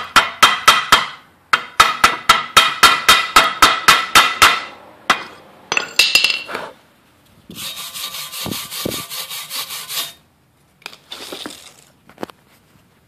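Chipping hammer tapping rapidly on stick-weld beads on a steel bar, knocking off the slag: ringing metal taps about five a second, in two runs over the first four and a half seconds. A few scattered knocks follow, then about two and a half seconds of steady scrubbing on the metal, with a shorter bout of scrubbing near the end.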